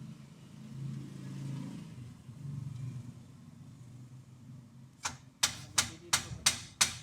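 Low steady hum, then six sharp hammer blows on metal, about three a second, each ringing briefly, starting about five seconds in.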